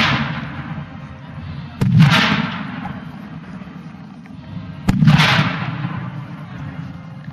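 Pyrotechnic explosive charges going off in an open field: the last of one blast rumbling away, then two sharp loud bangs about three seconds apart, about two and five seconds in. Each is followed by a long rumbling echo that fades over a second or two.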